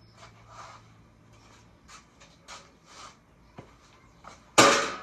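Light clicks and scrapes of hand tools and metal parts being handled while the valve covers come off a Chevy 327 V8. A single loud metallic clatter near the end.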